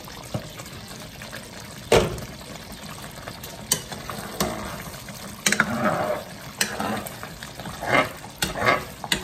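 A spoon stirring thick, simmering cream sauce in a saucepan, with wet squelching and bubbling and light knocks of the spoon against the pan. There is a sharp clack about two seconds in as the glass pan lid is set down.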